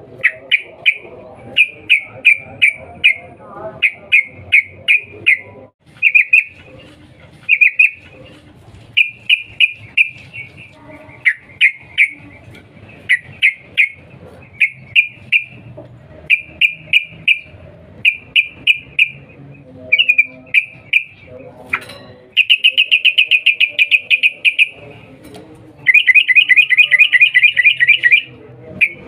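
Yellow-vented bulbul (trucukan) calling: short, loud chattering phrases repeated about once a second. Late on, two rapid trills of two to three seconds each.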